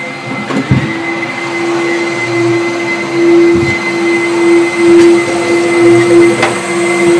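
Vacuum elevator's air pump running loud, a steady whine over rushing air, swelling louder in waves after about three seconds.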